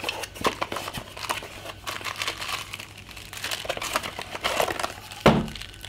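A small cardboard box being opened by hand, its paperboard flaps and inner box crinkling and rustling in many quick crackles as the contents are slid out. A single thump about five seconds in.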